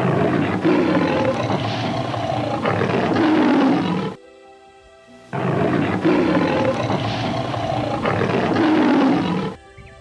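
A large animal's loud, rough roar, heard twice in near-identical stretches of about four seconds each with a short break between them, over background music.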